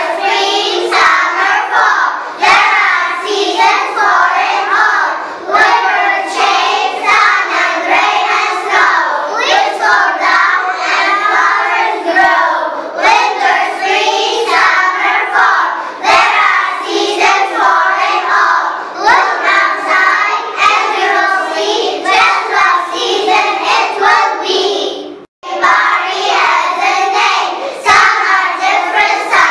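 A group of young children singing a song in English together. The singing cuts out for a moment about 25 seconds in, then resumes.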